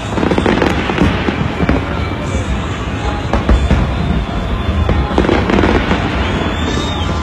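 Fireworks going off in quick succession, a dense run of bangs and crackling over a heavy low rumble, with music playing underneath.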